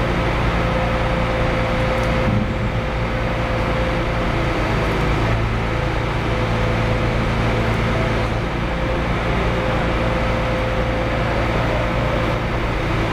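Steady factory-floor background noise: machinery and ventilation hum with a thin steady tone that fades in and out, nothing sudden standing out.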